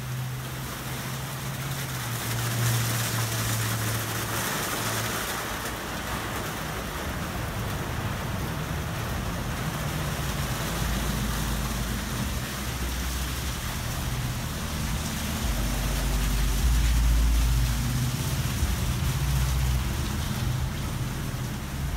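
Ryko SoftGloss MAXX rollover car wash at work on a car: a steady hiss of water spray and spinning cloth brushes over a low motor hum, which gives way to a deeper rumble about halfway through.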